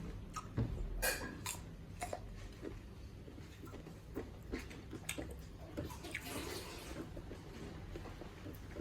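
Close-up eating sounds: wet chewing and lip smacks with scattered small clicks as soft finger-millet dhido and chicken curry are eaten.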